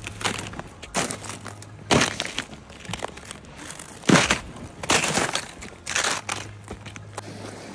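Trekking boots crunching on snow and broken ice of a frozen river, slow steps about one a second, stopping near the end.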